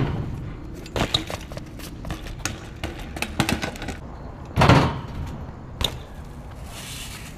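BMX bike being ridden through tricks: a loud, heavy thud of a landing a little past the middle, with scattered clicks and rattles of the bike before it and a sharper knock shortly after.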